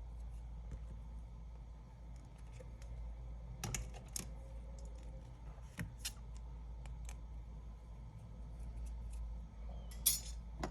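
Scattered small clicks and scrapes of hand tools working on the inside of an opened iPad 10, over a steady low hum.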